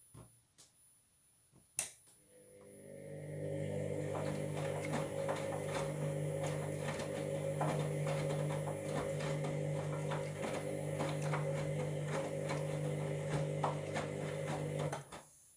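A washing machine drum turning one way in a wash tumble. A click about two seconds in, then the motor runs up and turns the drum for about twelve seconds with a steady hum and rapid irregular clicking, cutting off abruptly near the end. The owner takes the noise from the drum for a sign of worn drum bearings.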